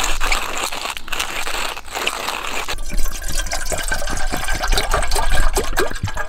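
Water poured from a plastic bottle into an aluminium camping kettle, splashing into the metal pot, then cutting off suddenly at the end.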